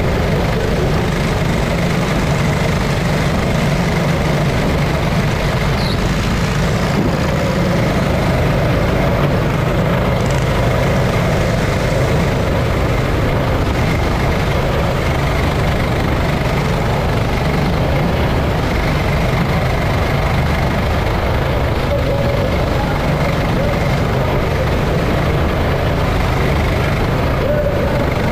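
Go-kart engine running hard under racing load, close up from a camera mounted on the kart, with other karts' engines around it; loud and steady throughout.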